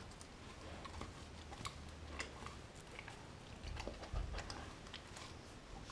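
A dog chewing raw food, faint irregular clicks of teeth and crunching a second or so apart, with a few close together near the middle, over a low steady hum.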